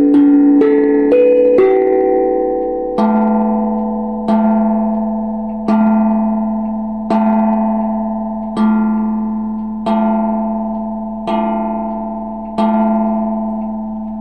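Grandfather clock chiming: the last notes of a quick chime tune, then it strikes eight o'clock, one deep bell note eight times about a second and a half apart, each ringing on and fading before the next.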